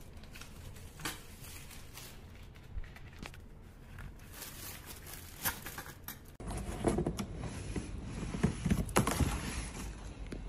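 Stainless steel pressure cooker lid being handled, giving scattered light clicks and knocks. About six seconds in, the sound changes abruptly to louder handling noise with rustles and bumps.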